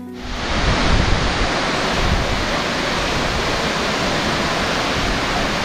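Waterfall: a loud, steady rush of falling water that cuts in abruptly.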